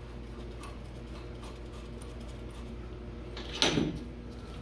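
A short metallic clatter about three and a half seconds in, bolts rattling as they are pulled from a steel magnetic parts dish. Under it, a steady low hum and a few faint ticks of hand work on the carburetor.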